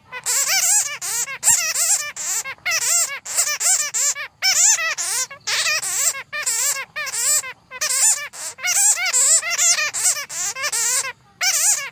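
Bats squeaking and chattering: a dense run of rapid, wavering high calls, many overlapping, broken by brief pauses.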